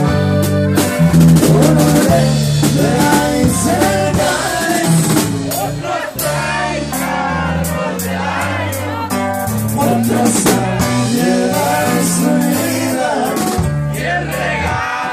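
Live norteño band music: a button accordion plays the melody over drum kit and changing bass notes.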